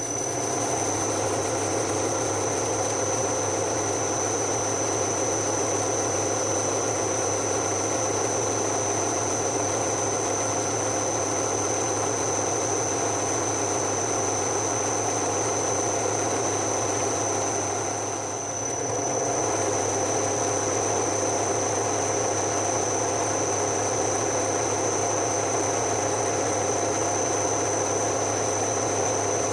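Electric workshop machine tool running steadily after being switched on, with a constant high-pitched whine over a low hum; the sound dips briefly about two-thirds of the way through.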